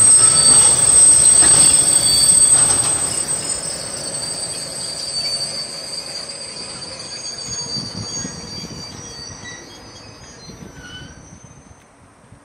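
Freight train of tank wagons rolling away along the track, its wheels squealing in several high, steady tones over a low rumble. The squeal and rumble fade steadily as the train recedes.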